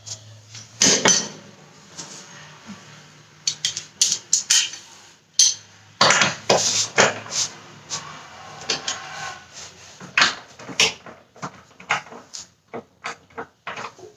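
Metal tools and car suspension parts clinking and clanking, with irregular knocks and rattles.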